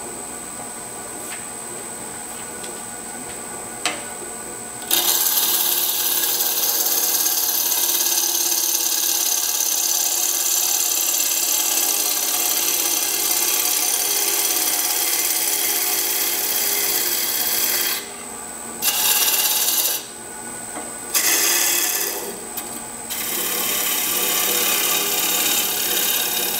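Wood lathe spinning a cherry blank while a gouge trues up its outside across the grain. The tool's cutting hiss starts about five seconds in and breaks off briefly a few times in the last third as the tool lifts away. Under it is the lathe's steady running hum with a thin high whine.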